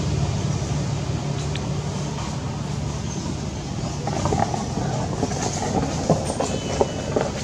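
Steady low rumble that slowly fades, with scattered light clicks and rustles from about four seconds in.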